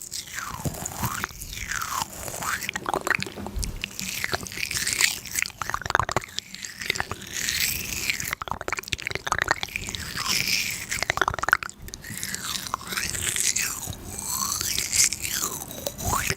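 Close-miked ASMR trigger sounds: dense crisp crackling and crunching clicks, mixed with swishes that fall and then rise in pitch as something moves back and forth close to the microphone.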